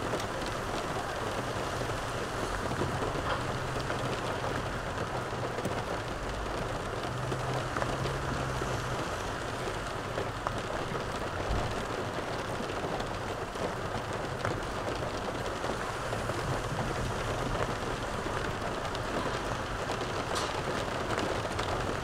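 Steady, even rushing noise inside a car cabin, with a low hum underneath and a few faint ticks.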